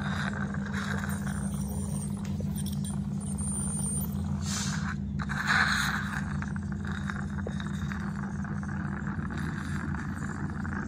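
Ultrasonic dental scaler at work, taking tartar off the inside of the lower front teeth: a hiss with a faint high whine coming and going, over a steady low motor hum. About four to six seconds in, a louder hissing surge stands out.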